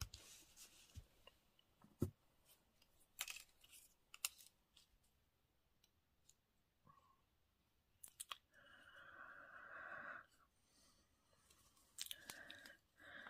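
Faint handling of cut-out paper pieces: scattered soft taps and clicks, with a longer stretch of rustling about eight and a half seconds in and a shorter one near the end.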